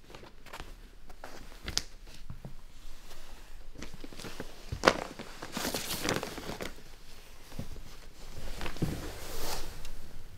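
A person's footsteps across a room with rustling, and a few sharp clicks and knocks, the sharpest about five seconds in; the rustling swells around six seconds in and again near the end.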